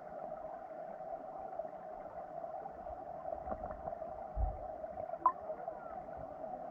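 Underwater sound of creek water as heard through a GoPro in its waterproof housing: a muffled, steady rushing with a constant mid-pitched hum. A few dull low knocks and a short high tick come a little after four and five seconds in.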